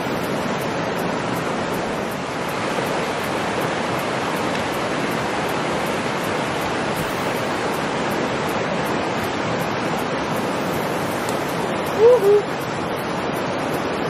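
Steady rush of a swollen creek pouring fast over rocks. About twelve seconds in, a short two-part vocal exclamation rises briefly above the water.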